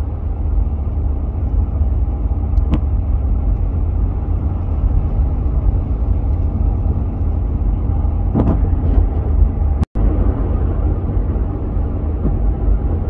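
Steady road and engine rumble of a car driving at highway speed, with no sirens. The sound cuts out for an instant about ten seconds in.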